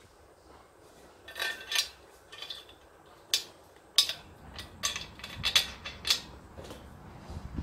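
Steel bolts clinking against the metal frame of an IKEA LERBERG shelf unit as a bolt is fitted into it by hand: about ten short, sharp metallic clinks, scattered and uneven.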